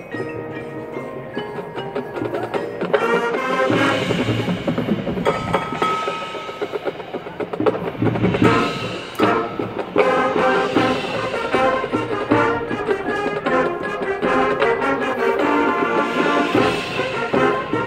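High school marching band playing its field show, with mallet percussion and drums prominent among sustained pitched notes. It grows louder about three seconds in.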